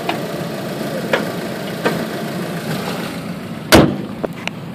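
Honda Civic's four-cylinder engine idling steadily with faint clicks. About three and three-quarter seconds in, a single loud slam as the hood is shut, after which the idle sounds quieter and muffled.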